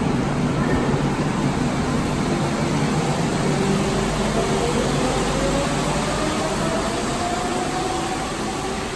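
Two-car Bombardier Innovia APM 100 rubber-tyred light-rail train pulling out and moving away, a steady running noise with a whine that rises in pitch from about four seconds in as it picks up speed, fading a little near the end.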